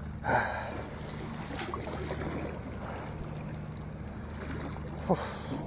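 Steady wind and sea wash on the microphone, with a few faint clicks and rustles of hands working a lure free from a landing net's mesh; a short louder noise comes just after the start and another about five seconds in.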